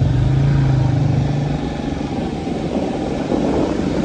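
Motorcycle engine running as the bike rides through water flowing across the road, with the rush and splash of the water. The engine eases off about a second and a half in.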